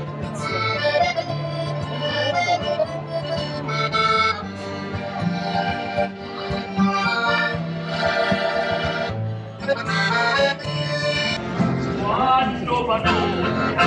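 Accordion and acoustic guitar played together by a street duo: a traditional-style tune of held accordion chords over a steady, stepping bass.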